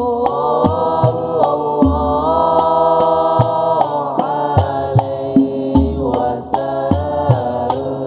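Hadrah Al-Banjari group: a chorus of young men chanting sholawat in unison, with long held notes that step in pitch, over a steady rhythm of frame-drum strikes and deep bass-drum thumps.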